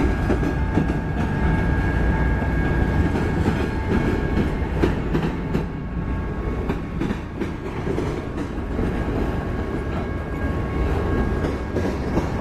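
Freight train cars (a covered hopper, then autoracks) rolling past at close range: steady rumble of steel wheels on rail with repeated clickety-clack over the rail joints, and a faint steady whine above it.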